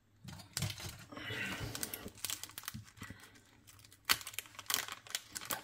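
Thin plastic bag crinkling as it is handled, then small scissors snipping into the plastic about four seconds in, with a few sharp clicks.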